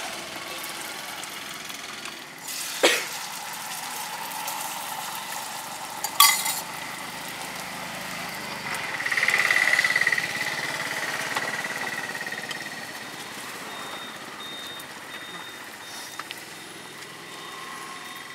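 Egg omelette frying in hot oil in a cast-iron pan: a loud sizzle swells up about nine seconds in and then settles into a steady frying hiss. Two sharp knocks come earlier, about three and six seconds in.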